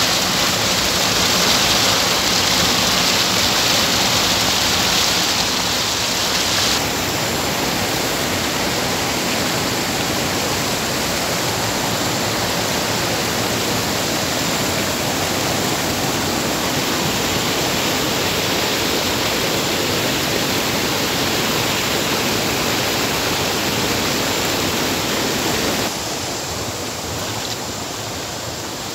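Fast-flowing water pouring over a small drop, a steady rushing noise with no break. It softens slightly about a quarter of the way in and again near the end.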